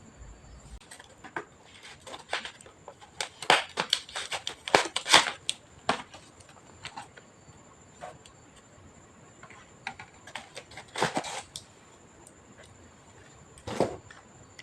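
Irregular sharp clicks, taps and rattles of hands and tools working on an all-in-one PC's plastic casing and internal parts. The clicks come thickest a few seconds in, again around eleven seconds, and once near the end.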